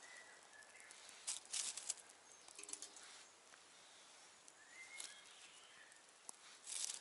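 Small wood fire of bark and dry leaves in a titanium camping stove, crackling and rustling in a few short bursts, with faint birdsong in the background.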